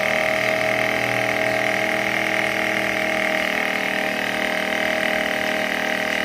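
Small battery-powered DC motor of a homemade cardboard flour mill running steadily, giving an even whine with several steady tones.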